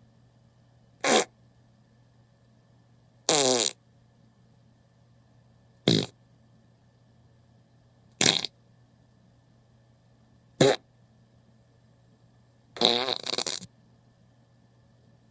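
A series of six separate fart sound effects, each a short pitched, buzzy rasp, coming about every two to two and a half seconds. The last one is longer and comes in two parts.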